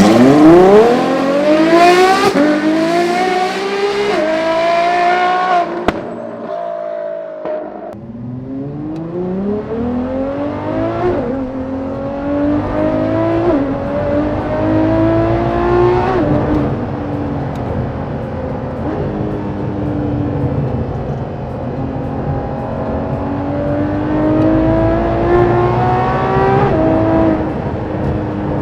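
Ferrari LaFerrari's 6.3-litre V12, straight-piped through a RYFT titanium exhaust, revving up sharply, then pulling hard through the gears: the pitch climbs and drops back at each of several upshifts.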